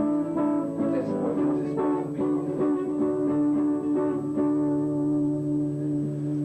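Guitar music: plucked and strummed guitar notes over a steady held bass.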